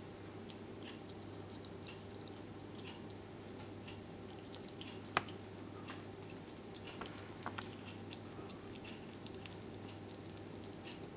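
Slow loris biting and chewing soft banana: faint, irregular small wet clicks and smacks, the sharpest about halfway through and a short cluster soon after, over a steady low hum.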